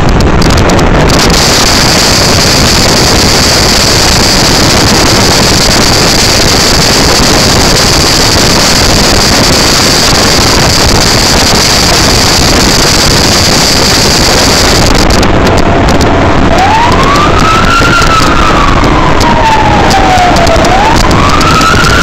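A fire truck on an emergency response: a loud, steady rushing of wind and road noise, with a steady high whine for most of the first two-thirds. From about three-quarters of the way in, a siren wails slowly up and down, rising again near the end.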